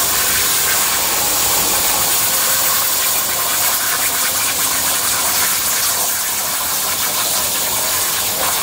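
CNC plasma cutter torch cutting through steel plate: a loud, steady hiss that stops abruptly at the very end as the arc shuts off.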